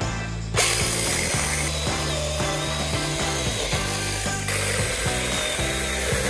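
Cordless mini chainsaw on a Makita-compatible battery, starting about half a second in and cutting wood. Its motor whine wavers in pitch as the chain bites under load.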